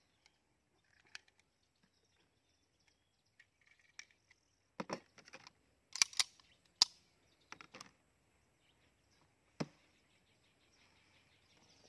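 Scattered metallic clicks and clacks of a 1911 pistol and its magazines and cartridges being handled at a table. Sharper clacks come about five, six and seven seconds in, and a single sharp click comes near ten seconds.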